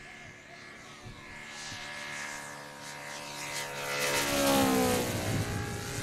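Giant-scale radio-controlled model airplane's engine and propeller making a low, fast pass: the sound builds, is loudest about four and a half seconds in, and the pitch drops sharply as the plane goes by.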